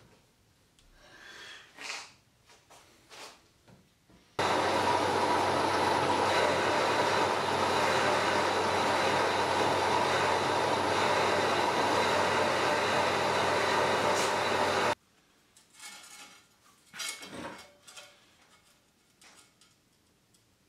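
Vertical milling machine running steadily with a constant whine, cutting into the old gearbox housing, starting and stopping abruptly after about ten seconds. Before and after it, faint clicks and scrapes of hand tools on metal.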